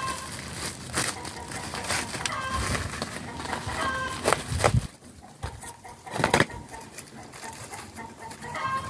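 Chickens clucking in short repeated calls, with sharp rustling strokes in between; the two loudest strokes come a little past the middle.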